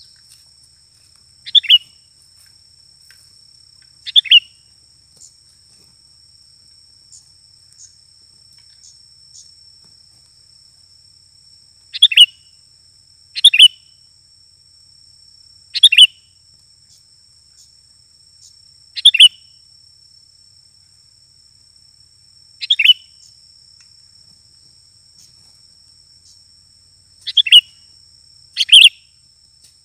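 Sooty-headed bulbul decoy bird calling to lure wild bulbuls: about nine short, sharp calls spaced a few seconds apart, each a quick falling note. A faint steady high insect trill runs underneath.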